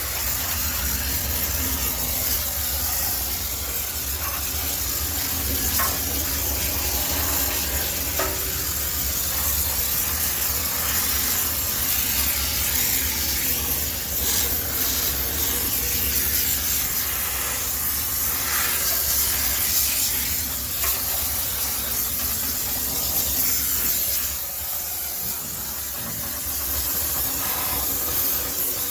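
High-pressure steam cleaner jetting steam with a steady hiss over a constant low hum from the machine, easing off briefly near the end.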